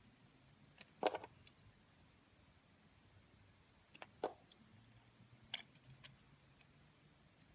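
Knife cutting through soap: a few scattered sharp, crisp clicks in small clusters, the loudest about a second in, with more around four and five and a half seconds in.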